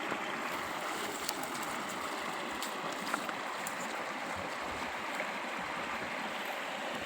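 Steady rushing of flowing water, with a few faint ticks.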